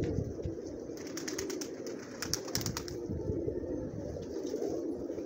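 A flock of domestic pigeons cooing, many voices overlapping into a continuous low murmur, with scattered light clicks between about one and three seconds in.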